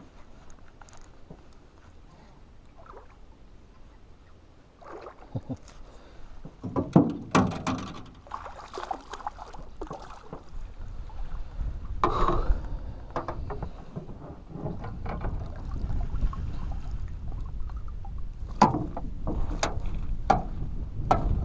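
Scattered knocks and clatters in a canoe while a hooked bass is fought and brought in, over a low wind rumble on the microphone that grows stronger from about halfway.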